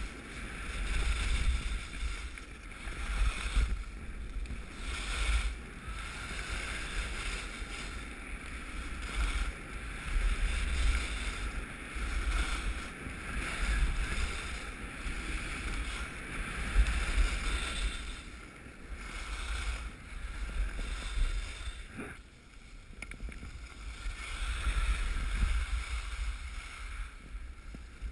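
Skis running on groomed snow, the edges hissing and scraping in swells that rise and fade every second or two through the turns, with wind rumbling on the microphone.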